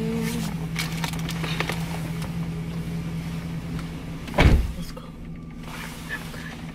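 Steady low hum inside a car, with a few light clicks early on and one heavy thump about four and a half seconds in.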